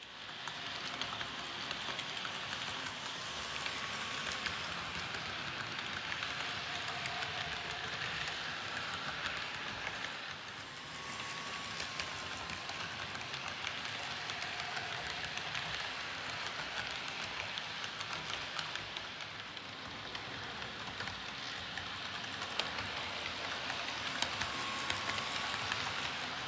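H0-scale model train running along the layout track: a steady rattling hiss of small wheels on the rails and the running motor, with brief faint whistling squeals now and then.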